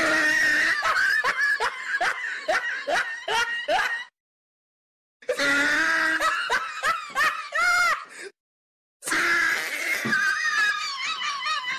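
Edited-in comedy laughter sound effect: three bursts of rhythmic 'ha-ha' laughing and snickering, cut off sharply with dead silence between them.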